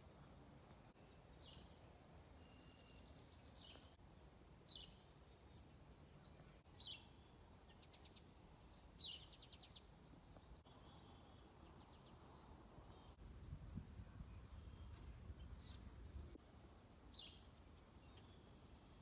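Faint outdoor ambience with small songbirds chirping now and then: short high calls and a couple of quick trills. A low rumble rises briefly in the middle.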